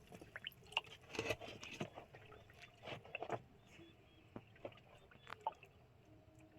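Faint scattered ticks and small splashes and drips of water, densest in the first couple of seconds.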